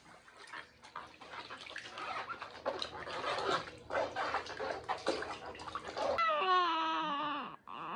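Water poured from a cup splashing over a baby's hair and into a small plastic bath tub during a hair wash. About six seconds in the baby gives a long wavering, falling cry, then a short one near the end.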